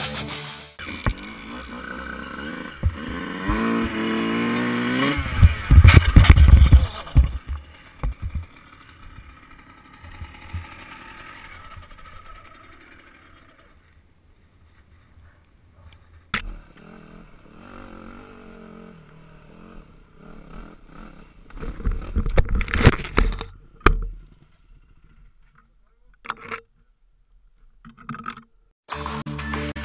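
Dirt bike engine revving up, rising in pitch, then a crash of loud thuds and scraping. After a quieter stretch, another cluster of heavy crash impacts comes about three-quarters of the way through.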